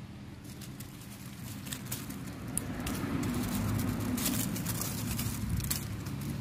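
A motor vehicle engine running nearby, its low hum growing louder from about halfway through. Scattered light crackles and clicks of leaves and stems being handled while picking.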